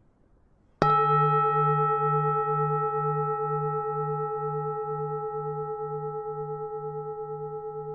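Bronze Vietnamese temple bell struck once about a second in, then ringing on with several steady pitches that fade slowly, the deep hum pulsing about twice a second.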